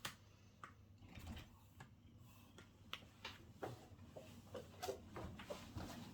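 Faint, scattered clicks and small handling knocks from a mirrorless camera and zoom lens being turned over and worked in the hands, over a low room hum.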